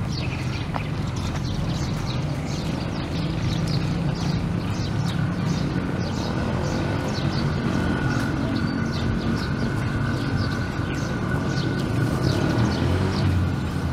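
Outdoor park ambience: a steady low rumble of distant traffic with small birds chirping over it, several short chirps a second. A thin steady high tone joins in for a few seconds in the middle.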